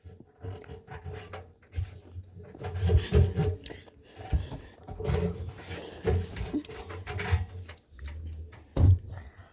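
Handling noises: irregular knocks and thuds with rubbing and scraping between them, and one sharper knock near the end.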